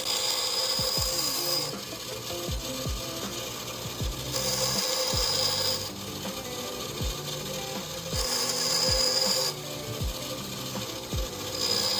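Grinder taking metal off a 1911 pistol's steel hammer to bob and round its spur. Four grinding passes of about a second and a half each, with pauses between, over the steady hum of the running motor.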